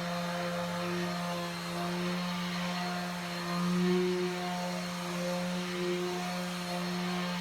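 Electric sander running steadily on paintwork, a constant motor hum whose overtones come and go as the pressure on the pad changes. The hum briefly swells about four seconds in.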